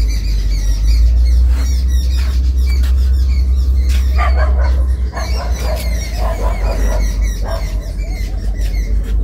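Steady low wind rumble on the microphone, with birds calling in the background from about four seconds in, a run of warbling chirps that fades out near the end.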